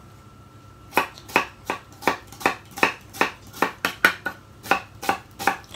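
Kitchen knife rough-chopping onion on a wooden chopping board: quick, even strokes of the blade knocking on the board, about three a second, starting about a second in.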